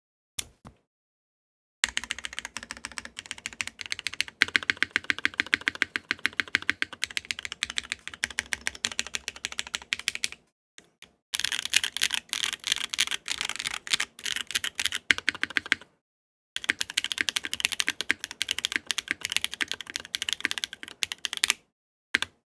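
Typing on a Geonworks W1-AT mechanical keyboard, top-mounted on a carbon fibre plate and fitted with BSUN BCP linear switches. It comes as three long runs of rapid keystrokes separated by brief pauses, with a lone keystroke near the start and another near the end.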